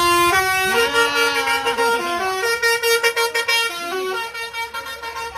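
Indonesian 'telolet' bus horn, a multi-trumpet musical air horn, playing a tune: several pitched horn notes step up and down and overlap, changing every fraction of a second to about a second.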